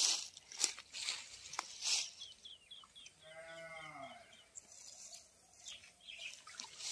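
Rustling of grass and water-hyacinth leaves as a person pushes through them, loudest at the start. About three seconds in comes a single bleat from a goat or sheep, about a second long, dropping in pitch at its end.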